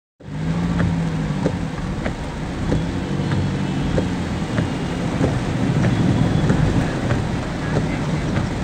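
Vehicle engine running steadily, heard from inside the cab while driving through heavy rain on a flooded road, with rain hissing on the windscreen. Faint regular ticks come about every two-thirds of a second.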